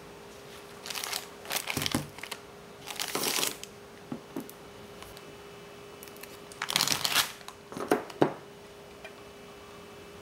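Plastic food packaging crinkling as grocery items are handled and picked up, in several short bursts, over a faint steady hum.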